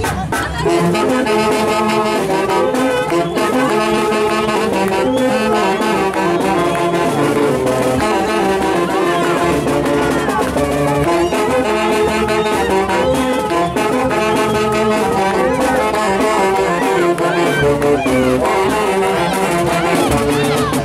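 A brass band playing a tune of short, repeated notes in a steady rhythm.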